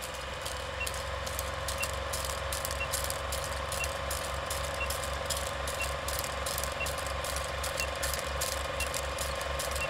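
Countdown intro sound effect: a steady mechanical rattle and hum, like an old film projector running, with a fast low flutter and a short high beep once every second.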